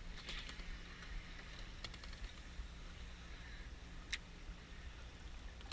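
Low steady hum of a fishing boat's engine, with a few faint sharp clicks.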